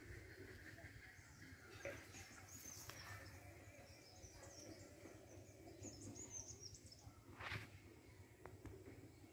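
Near silence: faint outdoor background with a few faint bird chirps, and one brief soft noise about seven and a half seconds in.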